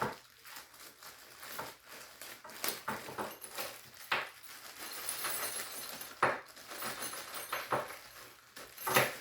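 A stapled cardboard package being pried and torn open by hand: an irregular run of rustles, scrapes and sharp clicks.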